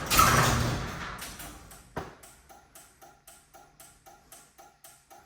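A loud rush of noise fades over the first second and a half. A sharp click comes about two seconds in, then a garage door opener clicks steadily about three times a second, the kind of signal an opener gives when faulty safety sensors keep the door from closing.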